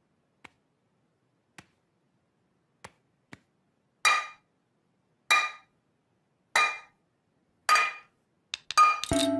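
Two metal kitchen pans clashed together like cymbals. A few faint taps come first, then four loud ringing clangs about a second and a quarter apart, then quicker clangs as music comes in near the end.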